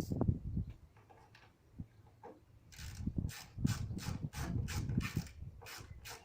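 A ratchet spanner is worked back and forth on a bonnet bolt. From about three seconds in it makes a steady run of short rasping clicks, about two to three strokes a second, after a few light knocks.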